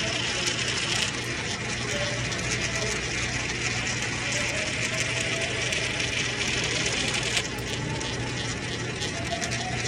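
Pennies rolling round a spiral vortex coin funnel, a fast, steady whirring rattle of metal on the funnel's surface. The whirring eases off about seven seconds in.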